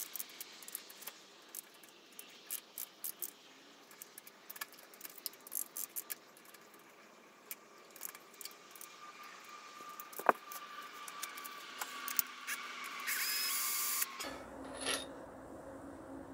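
Hand tools working on the rocker-arm valve gear of an OMC 235 marine V8 (a Ford 351 Windsor) during teardown: irregular light metal clicks and clinks, one sharp knock about ten seconds in, then about a second of steady whirring.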